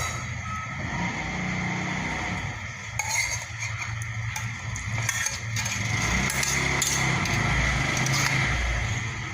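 Eating sounds close to the microphone: chewing, with cutlery clinking against a plate now and then.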